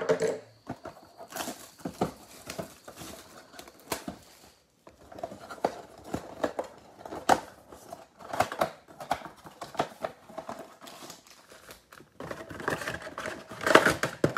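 Plastic shrink-wrap crinkling and tearing as a sealed cardboard trading-card box is unwrapped and opened by hand, with irregular crackles and taps from the cardboard and the foil packs being handled. The handling is busiest near the end.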